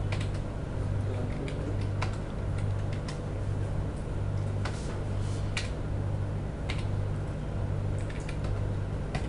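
Computer keyboard typing: scattered, irregular keystrokes over a steady low hum.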